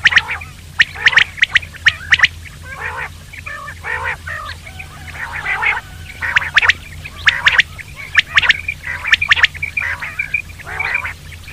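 Common quail calling: sharp notes in quick groups of two or three, repeated every second or so, mixed with softer, harsher rasping notes.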